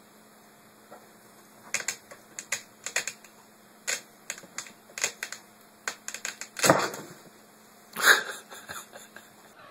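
A cat scratching and scrabbling with its claws in a fabric storage bin as it climbs inside: irregular light clicks and scratches, with two louder rustling bumps about seven and eight seconds in.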